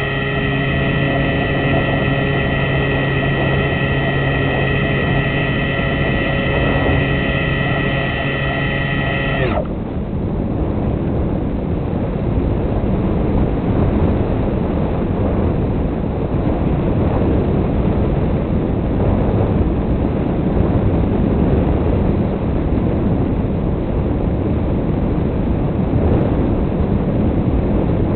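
Onboard sound of a fixed-wing RC model aircraft: its motor and propeller run at a steady pitch, then cut off abruptly about nine seconds in. After that only the rush of wind over the airframe and microphone is left.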